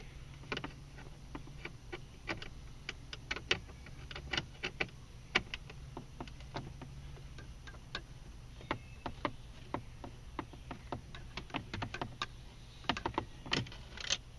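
Phillips screwdriver working screws out of plastic center-console trim: a run of many small, irregular clicks and ticks, a few to several a second, over a steady low hum.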